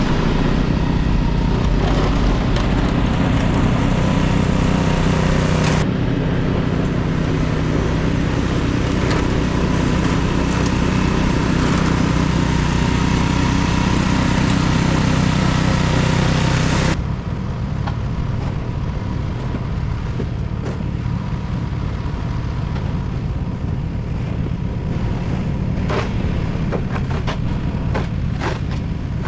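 A vehicle engine running steadily in the wind. The sound changes abruptly about six seconds in and again a little past halfway, where it turns duller and quieter. A few sharp knocks come near the end.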